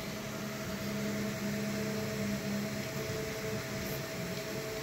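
FDM 3D printer mid-print: its stepper motors hum in short tones that change and break off as the print head moves, over a steady fan whir and hiss.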